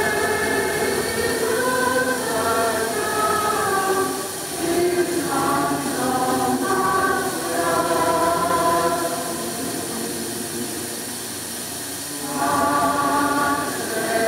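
A choir of many voices singing a slow hymn in long held notes, phrase after phrase, with a quieter stretch about two-thirds of the way through before the next phrase begins. A steady hiss of old film sound lies under the singing.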